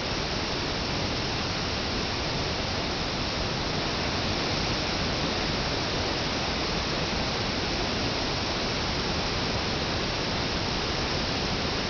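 The Great Falls of the Passaic River plunging into its rock gorge: a steady, unbroken rush of falling water.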